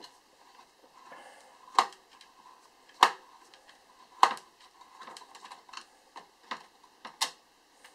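Sharp clicks and knocks of hands working at the open chassis and circuit boards of a vintage vidicon CCTV camera, trying to fold the boards out. Four louder clicks come about a second apart, the last near the end, with lighter ticks between.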